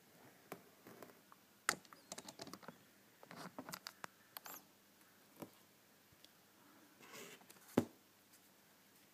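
Faint crackling, rustling and clicking as a cardboard tray of mini chocolate-chip muffins in plastic wrap is handled and a muffin in its paper case is lifted out. There are two sharper clicks, one a couple of seconds in and one near the end.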